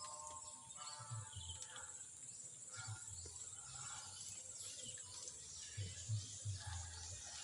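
Faint outdoor ambience: a steady high-pitched insect drone, with low rumbles that come and go and grow a little stronger near the end.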